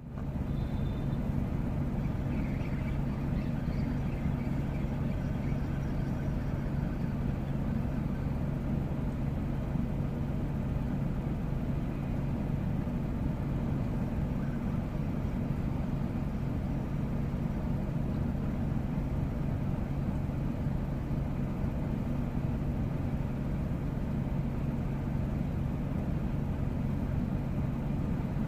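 A car engine idling steadily: a continuous low hum with one constant tone, unchanging throughout.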